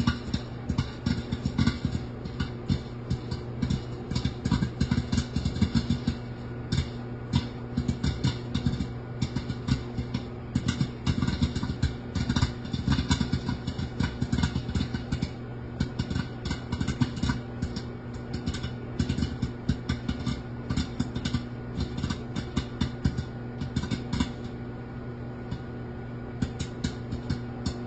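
Popcorn kernels popping in quick, irregular succession inside a glass microwave popcorn popper, over the steady hum of the running microwave oven. The pops thin out briefly near the end, then pick up again.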